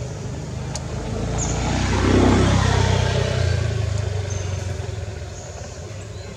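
A motor vehicle passing by out of view, its engine sound swelling to a peak about two seconds in and then fading away.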